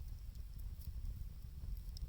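Wood fire crackling with a few faint sharp ticks, under a steady low rumble of blizzard wind buffeting the microphone.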